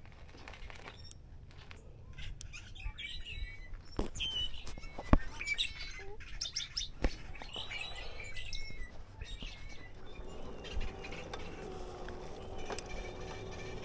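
Small birds chirping and tweeting, with a few sharp knocks as an electric bike is handled. About ten seconds in, a steady hum sets in as the e-bike's motor starts driving.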